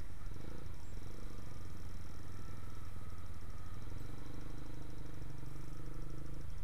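Motorcycle engine running at low speed in slow traffic, its note changing about four seconds in.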